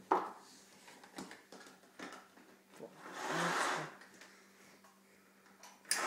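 Light knocks and scrapes from a vacuum cleaner's metal extension tube being handled against the wall and floor, with a brief rushing noise about three seconds in, over a faint steady hum.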